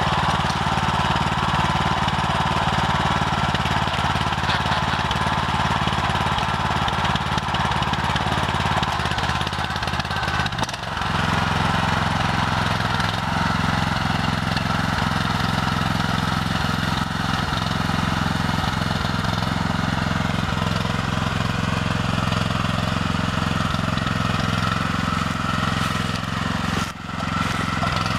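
Grillo G110 two-wheel walk-behind tractor's engine running steadily under load as the tractor pushes a buck rake through cut hay. Its note shifts about eleven seconds in, with a brief dip there and another near the end.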